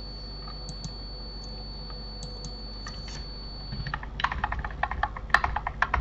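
Computer keyboard typing: a few scattered key clicks, then from about two-thirds of the way in a fast run of keystrokes, several a second.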